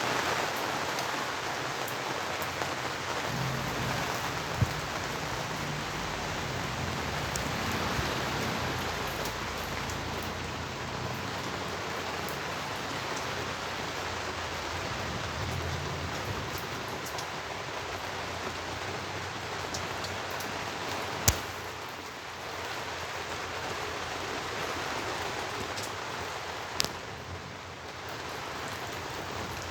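Rain falling steadily in strong wind, with low gusty rumbles now and then. Three sharp clicks stand out.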